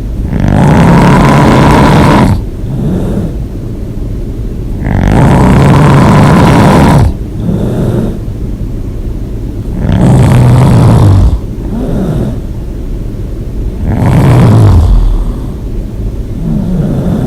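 A person snoring loud and hard: four loud snores, each one to two seconds long, coming about every four to five seconds, with quieter stretches between.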